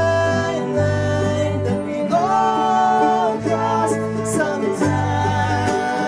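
Live acoustic string band playing a song: strummed mandolin, bowed cello and bass guitar holding long low notes, with a man singing lead and a woman singing harmony.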